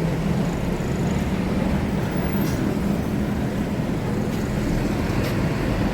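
Tour bus diesel engine running with a steady low hum, mixed with road traffic noise.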